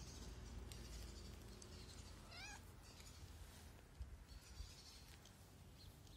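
A domestic cat meows once, briefly and faintly, about two and a half seconds in.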